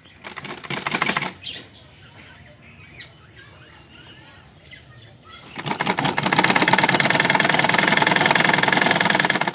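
Black domestic sewing machine stitching a folded hem on a cotton sleeve, the needle running in rapid even strokes. A short burst of about a second comes first. After a pause of several seconds, a longer run of about four seconds follows at a steady fast speed.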